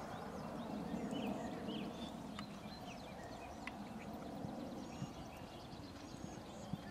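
A Welsh cross gelding cantering on grass, its hoofbeats soft and muffled, with a few faint sharp knocks.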